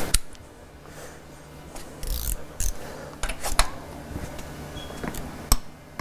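Metal clicks and clinks of a torque wrench and socket being fitted onto a motorcycle's rear axle nut and worked to tighten it: a handful of sharp, separate clicks spread over the seconds, with a short scraping rattle about two seconds in.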